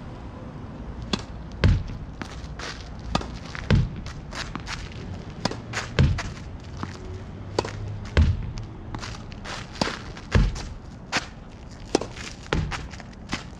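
Solo tennis rally against a practice wall: repeated sharp impacts of racket strokes, the ball striking the wall and bouncing on the hard court. The loudest deep thuds come about every two seconds, with lighter footstep and bounce clicks between them.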